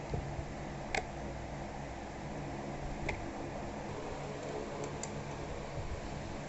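A few light metallic clicks as an Allen key is worked on the bolts of an office chair's metal seat mechanism, the sharpest about a second in, over a steady fan-like hum.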